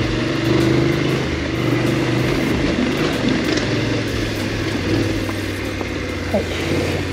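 BMW F850GS motorcycle's parallel-twin engine running at low, fairly steady revs while the bike is ridden, the note rising and falling slightly.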